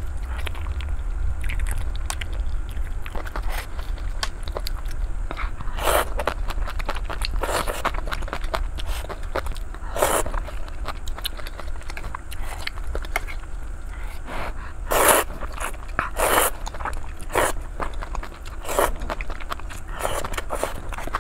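Close-miked eating: noodles sucked up from chopsticks and chewed, with short loud slurps at irregular intervals. A steady low hum runs underneath.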